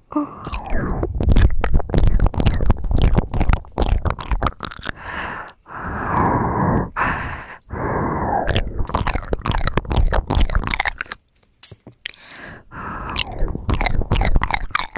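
Close-miked ASMR mouth sounds: rapid wet clicks and smacks mixed with breathy exhales, stopping briefly a few times, with a longer pause a little after the middle.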